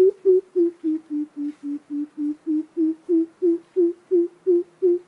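Coucal giving its deep hooting call: an even series of low "hoop" notes, about three a second, that dips in pitch midway and then rises again.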